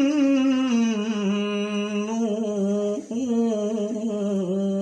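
A man reciting the Quran in melodic tajweed style, drawing out a long vowel between 'ilā' and 'an-nūr' as one held note. The note slides slowly downward, breaks briefly about three seconds in, then settles on a steady lower pitch.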